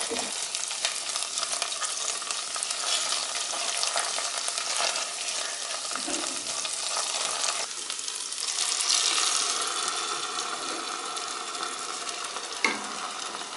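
Diced onion and tomato paste sizzling in hot oil in a pot while a wooden spoon stirs and scrapes them. Near the end tomato juice is poured in.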